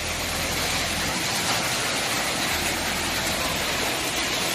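Heavy summer-storm rain pouring down in a steady hiss, with a low rumble underneath for about the first second and again for a second or so past the middle.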